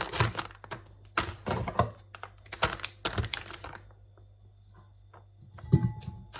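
Kitchen handling sounds while hot dogs in buns are packed into a thermos: a quick run of clicks, taps and packaging rustles, quieter for a stretch, then a single louder knock near the end.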